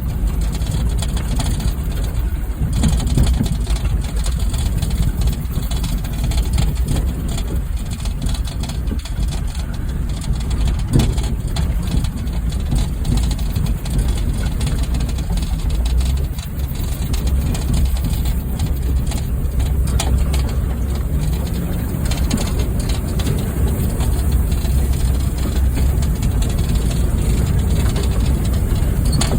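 Honda Fit's four-cylinder engine running steadily as the stripped-down car drives over a rough trail, with occasional knocks, one sharper about eleven seconds in.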